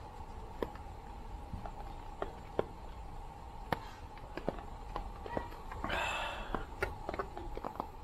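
Scattered light taps and clicks at irregular intervals over a steady faint hum, with a short hiss about six seconds in.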